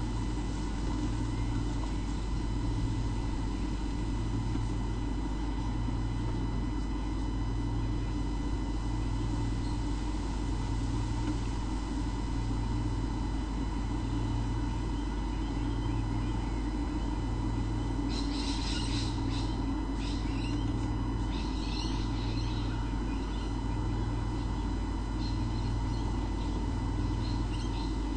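Steady electrical hum with a low throb pulsing about every two seconds. A bird chirps in a quick run of short, high calls about two-thirds of the way through, with a few fainter chirps near the end.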